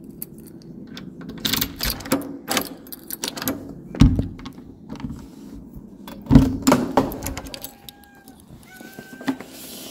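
Keys rattling and the clicks of a door being unlocked and opened, with two heavy thumps about four and six seconds in. Then a cat meows several times in short, steady calls near the end.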